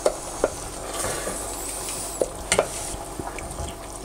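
Wooden spoon stirring saffron risotto rice in a stainless steel saucepan, with a steady sizzle as the freshly ladled hot seafood stock cooks into the rice. Several sharp knocks of the spoon against the pan, a few near the start and a cluster after two seconds.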